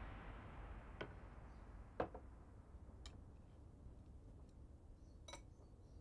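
A quiet room with a clock ticking faintly about once a second, three ticks in a row, then a light clink of porcelain tableware near the end.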